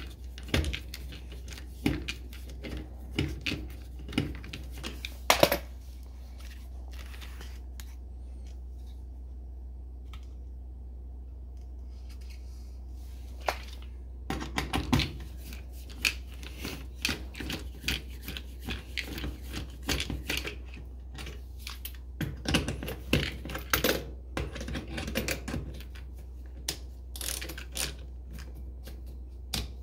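Clicks and light metallic clinks from a screwdriver being handled and turned on the terminal screws of an electric range's terminal block. They come in scattered runs with a quiet stretch of several seconds in the middle, over a steady low hum.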